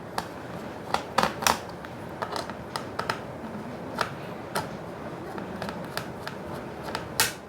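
Small screwdriver undoing the screws of a laptop's RAM access cover: scattered light clicks and scrapes of the bit in the screw heads, with a louder click near the end.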